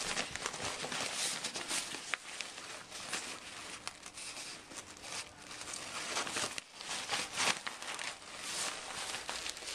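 The deflated airbag fabric of a Mammut Ride R.A.S. avalanche backpack rustles and crinkles as hands fold it and stuff it into the pack's airbag compartment. The rustling goes on almost without a break, with a short lull about two-thirds of the way through.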